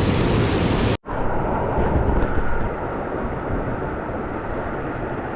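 Steady rushing noise of jungle creek or waterfall water, with wind on the microphone. It cuts out abruptly about a second in and comes back duller.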